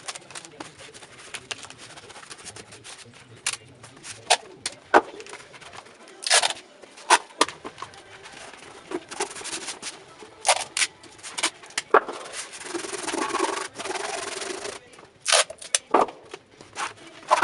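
Adhesive tape being pulled off the roll and rubbed down along the edges of a cardboard box: scattered sharp clicks and crackles, with a longer rasping stretch about twelve seconds in.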